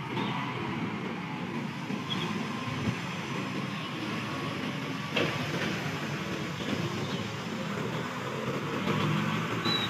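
Diesel engine of a container truck loaded with sugar running as it crawls down a steep bend: a steady low rumble with a faint hum.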